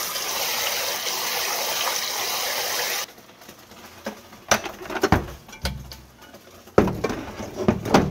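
Tap water running steadily into a rice pot as rice is washed by hand, cutting off after about three seconds. Then come a few scattered knocks and clicks from handling a Cuckoo electric rice cooker and its lid.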